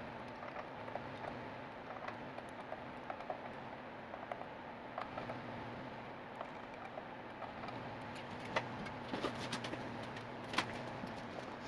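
Scattered small ticks and sharper metallic clicks over a steady room hum, with a cluster of louder clicks in the second half: a small tool turning the bridge saddle height screws of a Squier Stratocaster down toward bottoming out.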